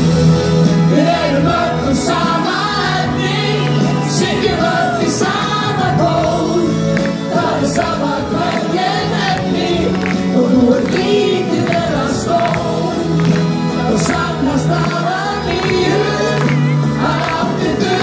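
A group of male and female singers singing an Icelandic pop song together into microphones over amplified backing music.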